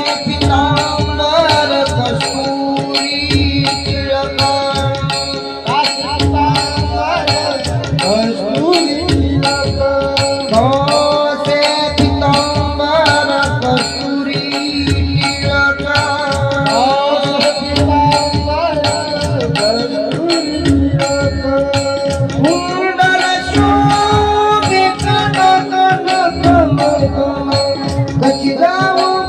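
Marathi devotional song music without lyrics: a melody gliding over a steady drone, with a regular hand-drum beat.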